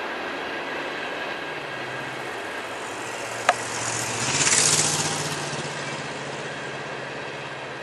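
Empty coal hopper cars rolling past on the rails with a steady rumble and rattle. A single sharp clank comes about three and a half seconds in, and a brief louder swell of hissing noise follows a second later.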